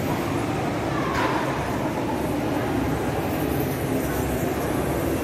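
A train running, a steady rumble and rush of noise, with a brief falling tone about a second in.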